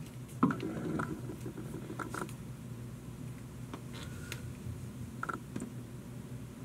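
Small clicks, knocks and rustles of someone rummaging through an open refrigerator, with a few brief squeaks, over a low steady hum.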